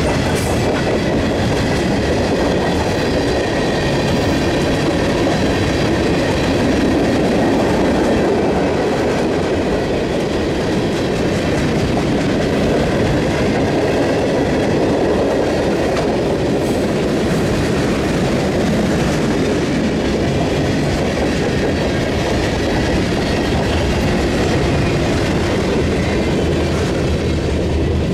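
Freight train cars rolling past close by: a steady rumble and clatter of steel wheels on the rail joints, with the last cars going by near the end.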